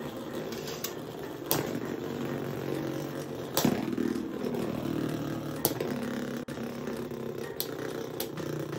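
Two Beyblade X spinning tops, Dran Sword and Sphinx Cowl, whirring as they spin in a stadium, with several sharp clacks as they strike each other or the stadium wall, the loudest about three and a half seconds in.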